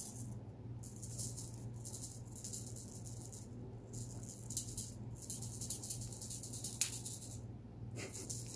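Soft, hissy shaker-like rattling in stretches broken by short pauses, over a faint steady low hum.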